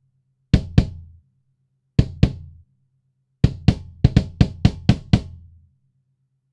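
Kick drum hits, each a sharp click with a low boom: two double hits, then a quick run of about eight, run through a transient designer with the sub below 100 Hz boosted.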